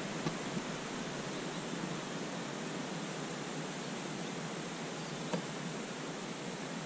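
Steady outdoor background hiss on a small action-camera microphone, with two faint clicks, one just after the start and one about five seconds in.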